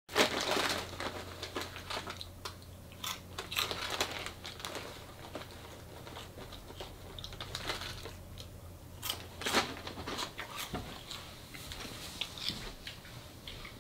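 Chip bag crinkling and chips crunching as someone eats from the bag: irregular crackles throughout, over a faint steady low hum.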